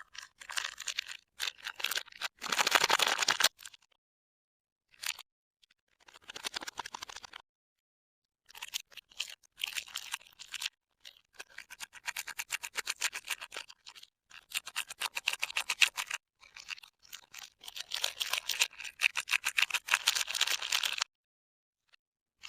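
Soap bars being unwrapped by hand: dry crinkling and rustling of their wrappers in a series of bursts of fine rapid crackles, with dead silence between the bursts.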